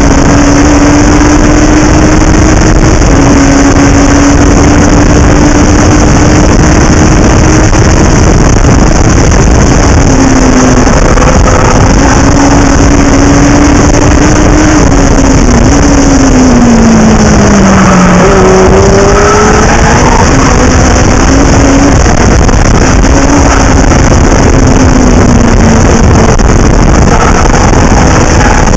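Onboard sound of a Legend race car's Yamaha 1250 cc four-cylinder motorcycle engine running hard at a nearly steady pitch. The pitch falls for a couple of seconds past the middle, then picks back up. Heavy rushing wind and road noise sit over it on the car-mounted camera's microphone.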